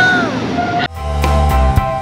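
Background music: a sliding note at the start, then about a second in a new section cuts in with held notes, deep bass and a steady beat.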